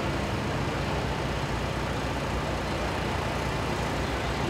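Engines of a heavy-haul transporter convoy running steadily as the multi-axle rig rolls slowly past, a constant low hum under a wash of rolling noise.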